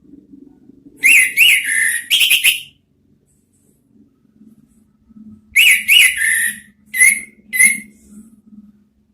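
Orange-headed thrush song: two phrases of quick, clear whistled notes that swoop up and down. The first starts about a second in, and the second comes a few seconds later.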